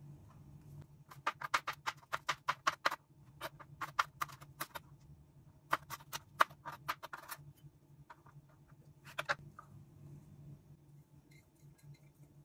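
Chef's knife chopping bird's eye chilies on a plastic cutting board: quick runs of sharp taps, about four or five a second, in several bursts with short pauses, the last about nine seconds in. A faint low hum runs underneath.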